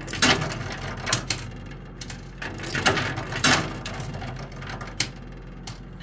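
Metal coins clinking and clattering inside a coin-pusher arcade machine: several sharp clicks at irregular intervals over a low steady hum.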